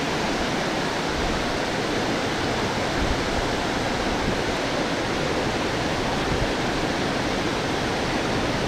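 Water pouring over a low concrete weir into the pool below: a steady, even rushing.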